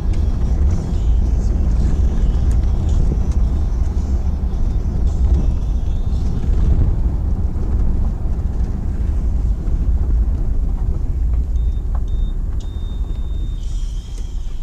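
Car driving along at speed, heard from inside: a steady low rumble of road and wind noise, easing off a little near the end.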